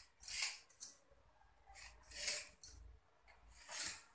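Knife blade scraping across a stone countertop as it cuts a rolled-out sheet of dough into shakkarpare pieces, in a series of short strokes about one a second.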